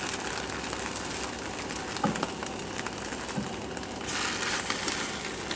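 Egg sizzling in a little oil in a nonstick frying pan, a steady hiss that swells a little near the end, with a few light taps of a plastic spatula against the pan.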